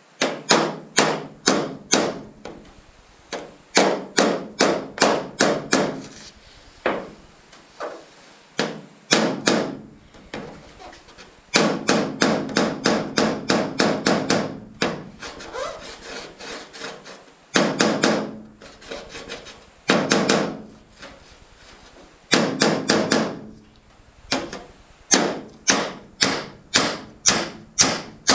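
Light hammer-and-dolly strikes on a thin aluminum canoe hull, tapping out dents in quick runs of about three to four blows a second with short pauses between runs. Each blow gives a brief metallic ring.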